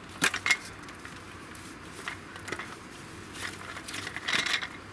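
Dry branches knocking and clattering against each other as a bundle of them is handled and laid out on the grass. The sharpest knocks come about a quarter second in, with more around two seconds and a cluster near four seconds.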